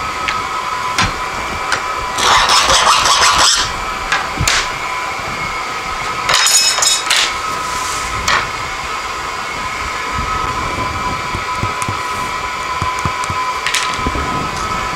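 Steady shop machine hum with a thin whine, over which glass neon tubing is handled on a workbench. There are two scraping bursts and a few light taps against the bench.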